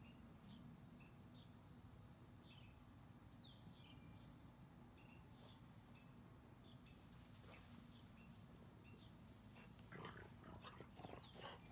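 Near silence: faint outdoor ambience with a steady high-pitched insect drone and scattered short chirps, and a few faint short noises near the end.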